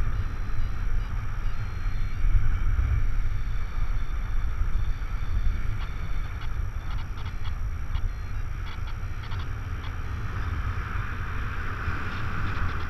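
Wind buffeting the microphone of a camera on a flying paraglider: a steady low rumble with a hiss over it. Faint clicking is heard in the second half.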